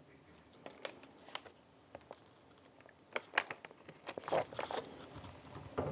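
Faint scattered clicks and rustling in a quiet room, with more of them in the second half.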